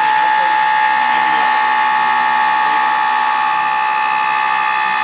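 Home-built CNC machine running, its motors giving a steady whine of several held high tones over a rough mechanical rattle.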